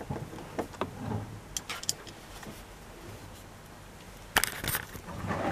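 Light clicks and taps of hand tools and plastic door-panel parts being handled during reassembly of a car's inside door panel, with a sharper click about four and a half seconds in and rustling near the end.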